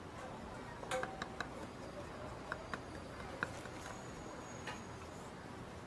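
A meat cleaver chopping and slicing roast meat on a thick wooden chopping block, heard as a handful of sharp, irregular knocks over steady background noise.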